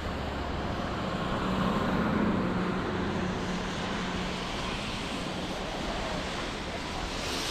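Road traffic on a city street: a steady wash of vehicles running by with a low engine hum, swelling as one vehicle passes close about two seconds in.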